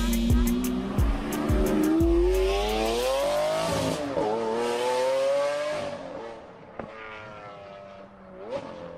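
Race-car engine revving up, its pitch climbing steadily, then dropping briefly about four seconds in like a gear change before climbing again. It fades out over the last few seconds.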